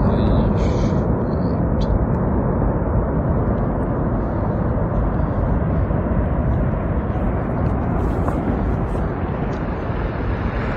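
Snow avalanche coming down a mountainside: a steady low rumble that eases slightly toward the end.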